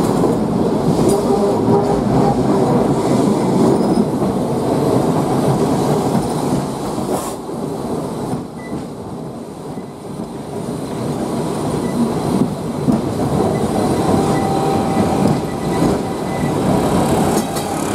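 A 1904 electric tramcar, heard from on board, running along its track: a steady rattling rumble of wheels on rail and the old car body, easing a little about halfway through, with a faint squeal of wheels near the end.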